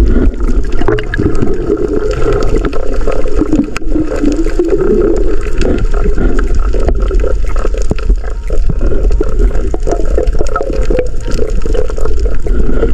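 Muffled underwater gurgling and bubbling of sea water around a submerged camera, over a steady low rumble with scattered clicks.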